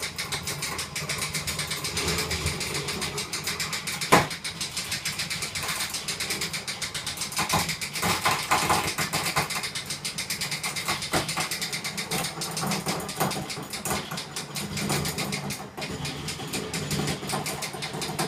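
Winch hauling a home-made bed-frame lift platform upward under a test load of about 400 pounds of batteries and logs: a steady mechanical running with a fast, even pulsing, and one sharp clank about four seconds in.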